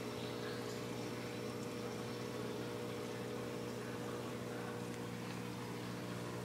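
Steady electric hum of a reef aquarium's water pump, with a faint hiss of circulating water.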